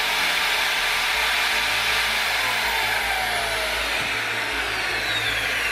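Parkside PFMR 1600 B2 corded paddle mixer running at speed with no load, a loud motor and gear whine. Over the second half the whine falls steadily in pitch as the motor slows down.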